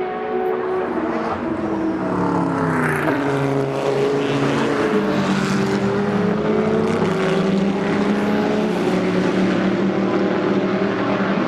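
Endurance race cars passing through a corner, several engines overlapping. Their pitch drops as they brake and downshift over the first few seconds, then climbs in steps as they accelerate away.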